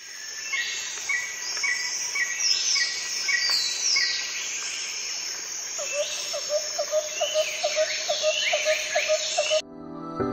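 Birdsong: several birds calling with repeated chirps and falling whistles. In the second half a run of short, lower calls comes about three a second. The birdsong cuts off abruptly shortly before the end.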